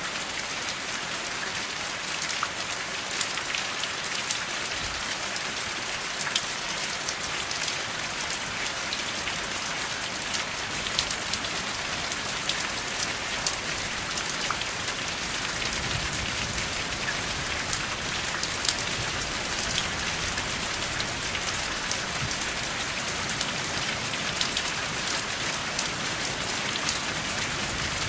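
Steady rain with no thunder: an even hiss of falling rain, with many sharp, separate drop hits close by.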